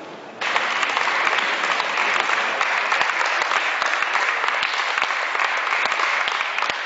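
Audience applauding, breaking out suddenly about half a second in and holding steady and loud.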